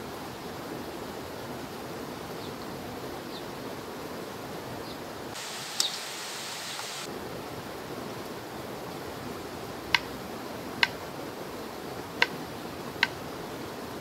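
Kitchen knife slicing peeled potatoes on a wooden cutting board: four sharp knocks of the blade against the board in the second half, and one earlier near the middle. Behind them runs a steady rushing hiss.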